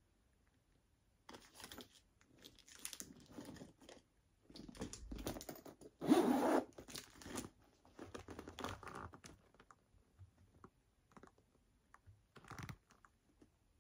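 Faux-leather Loungefly mini backpack being turned over and handled, rustling and scraping in irregular bursts. Its zipper is worked as the bag is opened, and the loudest scrape comes about six seconds in.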